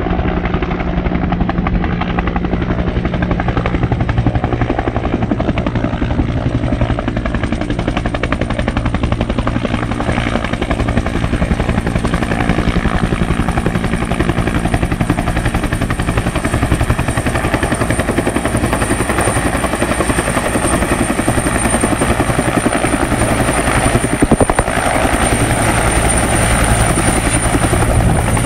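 Bell 212 twin-turbine helicopter with a two-bladed main rotor approaching and coming down into a low hover to fill its slung water bucket. The rotor beats steadily, and a high turbine whine grows stronger as it nears.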